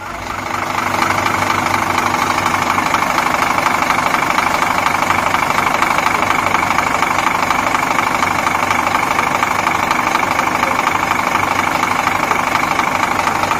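An engine running steadily with a fast, even pulsing, fading in at the start and out near the end.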